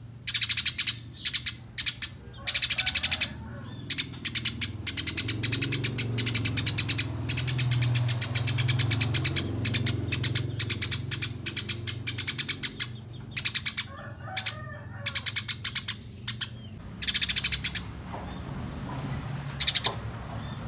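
Eurasian tree sparrows chattering: fast runs of sharp, high chirps, many per second, in bursts broken by short pauses. This is the rapid, agitated chatter of sparrows squabbling.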